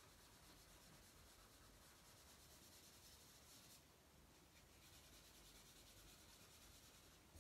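Faint scratching and rubbing of a drawing stick on paper as dark shading strokes are laid down over low room hiss, a little stronger in the second half.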